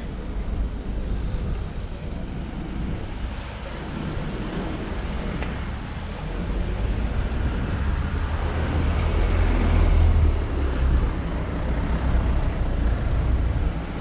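Road traffic: a motor vehicle passing, its rumble growing to its loudest about ten seconds in and then easing off.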